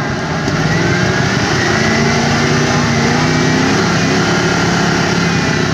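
Modified off-road trial vehicle's engine running hard and steady under load as it crawls up a rock step, its pitch rising slightly a couple of seconds in.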